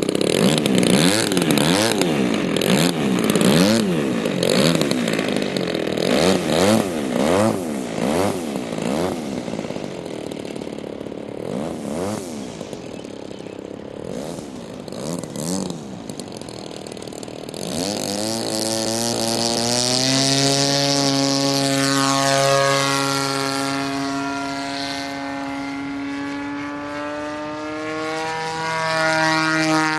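Model airplane engine spinning its propeller, revved up and down quickly over and over, then dropping to a low, rattly running. About eighteen seconds in it is run up to a steady high-speed drone that it holds, with a slight dip near the end.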